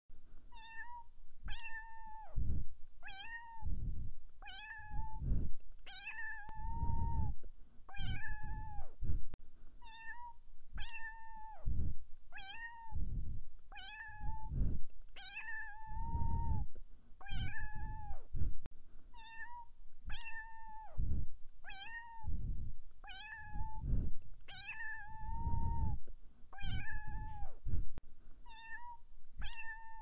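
A kitten meowing over and over, about one high call a second, each call holding its pitch and then dropping at the end. Low rumbling sounds come between many of the calls.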